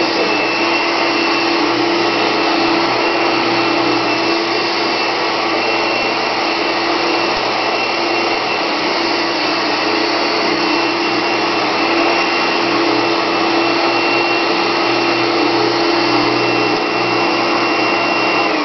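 Circa-1976 Hoover Dial-a-Matic model 6043 upright vacuum cleaner running steadily, with a thin high motor whine over the rush of air. At the very end it begins to wind down.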